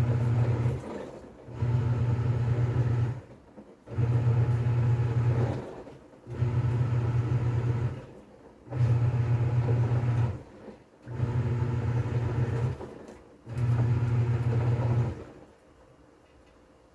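TCL 7.5 kg top-load washing machine (TWA75-F107TLW) agitating in its wash stage: the pulsator motor hums in regular strokes of about a second and a half, each followed by a short pause, with the load churning in the water. The strokes stop about a second before the end.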